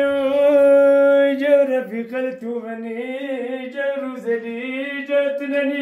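One voice singing unaccompanied, with long held notes that bend and waver in pitch, in the style of a cappella chant.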